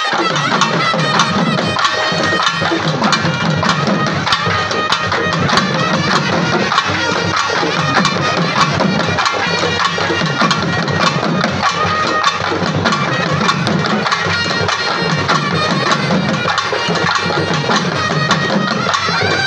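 Festival band of hand drums played with sticks, beating a fast, dense rhythm, with a shrill reed pipe holding a sustained melody over it.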